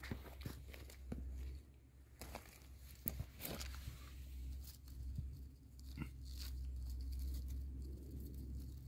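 Scattered crunching, snapping and rustling of dry twigs and spruce-needle litter on a forest floor, with a hand pulling a mushroom up out of the litter near the end.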